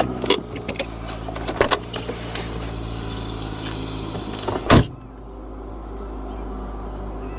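Car engine and road noise heard from inside the cabin while driving, a steady low hum. There are several sharp clicks in the first two seconds, and a loud thump just before five seconds, after which the drone continues more dully.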